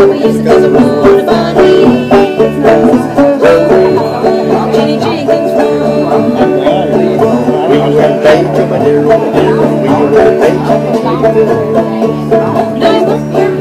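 Banjo and upright bass playing a bluegrass tune together: quick picked banjo notes over a steady plucked bass line.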